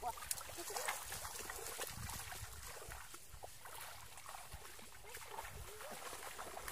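Feet wading and splashing through shallow, ankle-deep water, with a few short, faint calls in the background.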